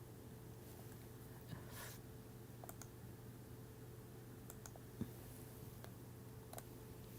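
A few faint, scattered clicks from computer use over a steady low room hum.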